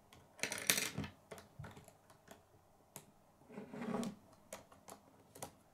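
Plastic K'nex pieces clicking and snapping as they are fitted together by hand: a scatter of sharp clicks, with a quick cluster of them about half a second in.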